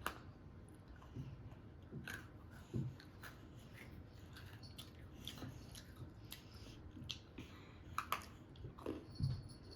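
Chewing and biting on a crunchy decorated cookie, with irregular small crunches and clicks, a few louder ones near the end.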